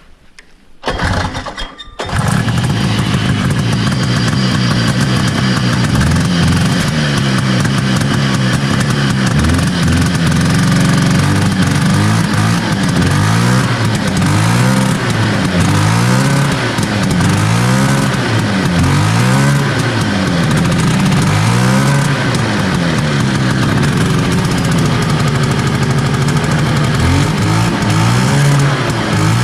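The Sachs 440 twin-cylinder two-stroke engine of a 1970 Herter's Husky snowmobile catches about two seconds in and runs, being revved up and down over and over. It runs hit and miss, firing better once revved, because one cylinder has a weak, intermittent spark from the points ignition.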